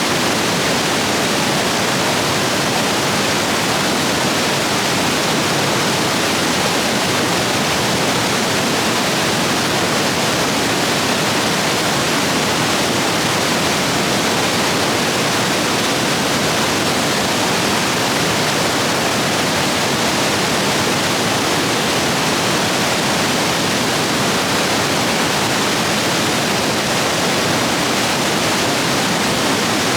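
Rain-swollen rapids rushing over rocks, a steady full rush of white water.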